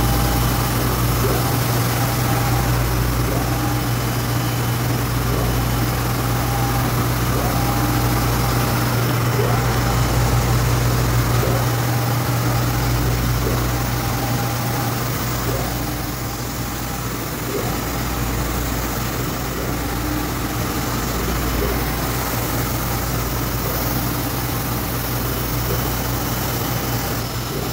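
Epson SureColor V7000 UV flatbed printer running mid-print: a steady machine hum, with a motor whine that starts and stops every second or two as the print-head carriage makes its passes.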